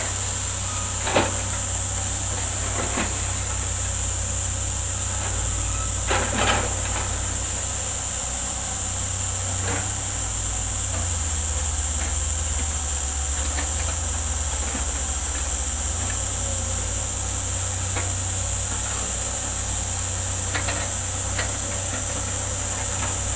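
Hydraulic excavators' diesel engines running with a steady low rumble, with a few short clanks now and then as they dig. A steady high-pitched insect buzz runs over it.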